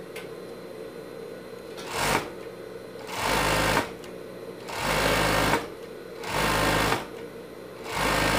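Sun Special overlock machine stitching knit fabric in short runs, starting and stopping: a brief blip about two seconds in, then four runs of about a second each, the last beginning near the end.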